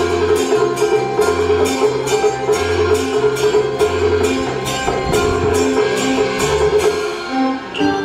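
Taiwanese opera accompaniment ensemble playing an instrumental interlude between sung lines: a held melody line over a moving bass, with a steady percussion beat of a few strikes a second.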